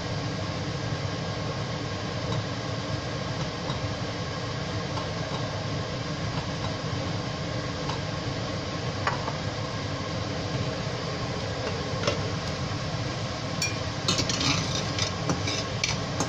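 A steady rushing background noise. From about fourteen seconds in comes a run of sharp clinks and scrapes as the glass lid comes off a steel pan of simmering curry and a spatula knocks and scrapes inside the pan.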